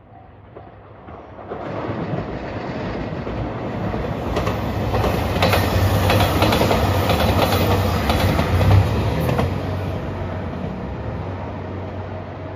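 JR Shikoku 2700 series diesel limited express passing at speed: its diesel engines run with a steady low hum while the wheels clack over the rail joints. It grows louder, peaks in the middle, then fades as it pulls away.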